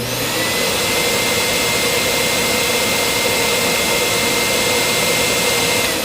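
A loud, steady engine-like rushing noise with a high held whine, used as a sound effect; it starts suddenly and begins to fade near the end.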